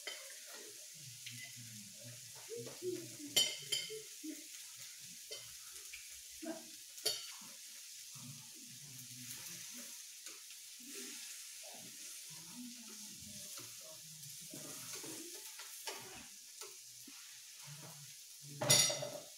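Food sizzling on the hot top plate of an electric raclette grill, a steady hiss, with a few sharp clinks of cutlery and chopsticks against plates and a louder clatter near the end.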